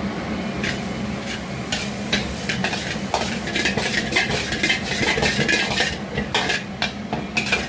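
Metal spatula clanking and scraping against a wok as food is stir-fried and sizzles, the strokes coming irregularly, several a second, over a steady low hum.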